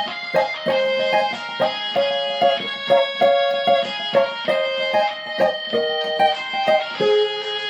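Cavaquinho playing a hymn melody in quick plucked notes, about two or three a second, each ringing briefly.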